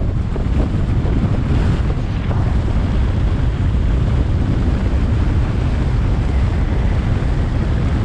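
Strong wind buffeting the microphone on the open deck of a cruise ship under way: a dense, steady low rumble that does not let up.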